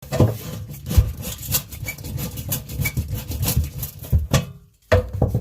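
Rough rubbing and scraping with many irregular knocks and clatters, stopping for a moment near the end before a few more knocks.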